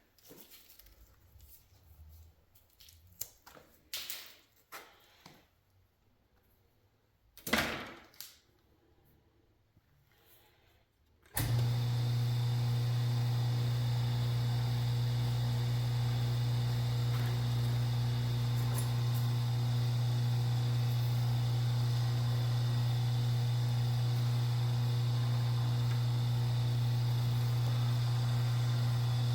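Scattered quiet clicks, knocks and rustles of copper wire being handled and stripped. About eleven seconds in, a steady low electrical hum of an appliance or motor switches on abruptly and keeps running evenly.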